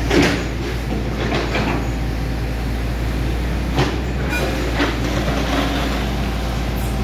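Hitachi 110 hydraulic excavator's diesel engine running steadily, with a few sharp knocks: one right at the start, two about a second and a half in, and two more near four and five seconds.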